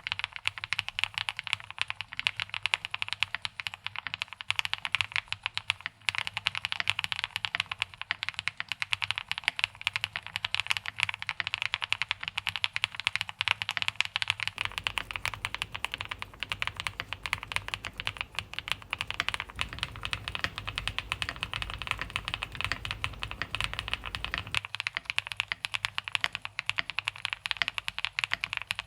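Fast, continuous typing on an Emotoys Tyche 75 gasket-mount mechanical keyboard with Jelly NPS switches, a POM plate and GMK keycaps: a dense stream of key clacks. A low rumble runs underneath for about ten seconds in the middle.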